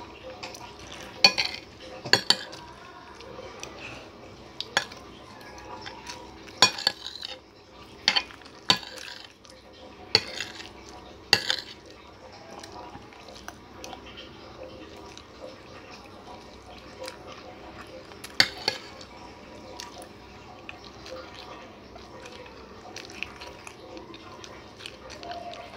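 Metal spoon and fork clinking and scraping against a plate while eating: sharp clinks every second or two through the first half, then one more later.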